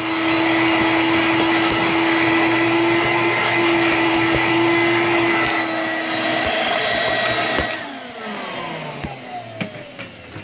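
Electrolux Discovery 2 upright vacuum's suction motor running steadily during hose use, then switched off near the end and winding down with a falling whine.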